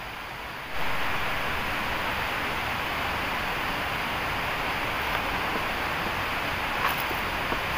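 Steady rushing outdoor noise of the forest ambience, which jumps suddenly louder about a second in and then holds even, with a faint click or two near the end.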